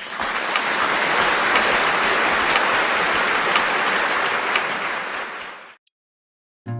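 Clock-ticking intro sound effect: sharp, even ticks about five times a second over a loud steady hiss, which cut off suddenly near the end.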